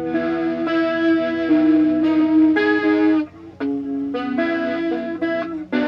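Electric guitar played through a Mosky distortion pedal: sustained, overtone-rich distorted notes and chords, with a brief gap about three seconds in.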